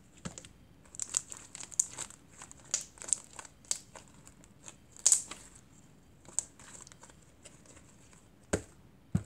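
Purple butter slime being stretched, folded and pressed by hand: a run of small irregular crackles and sticky pops, densest in the first half, with two heavier pats near the end.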